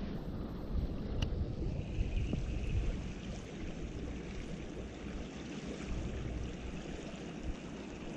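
Running water of a small creek, a steady rushing noise, with a low rumble of wind on the microphone and a single sharp click about a second in.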